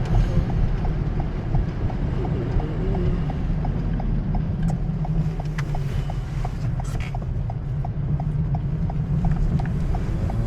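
Car turn-signal indicator clicking steadily, about three clicks a second, inside the Toyota Corolla's cabin over the low rumble of the engine and tyres on the road.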